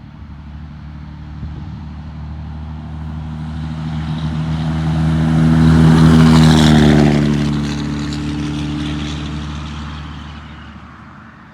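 Straight-piped 2003 Dodge Ram 3500's Cummins diesel, with a 5-inch exhaust, driving past. A deep exhaust drone builds, is loudest about six seconds in, drops slightly in pitch as it passes, and fades away.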